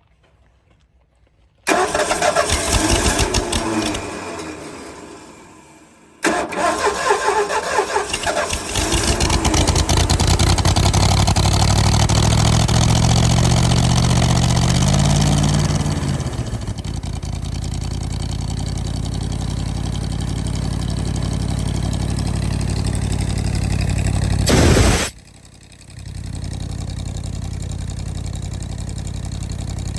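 The Ford engine of a trailer-mounted air compressor starts, runs a few seconds and winds down, then starts again. It revs with rising pitch, drops back and settles into a steady idle, with a brief loud burst and a short dip near the end.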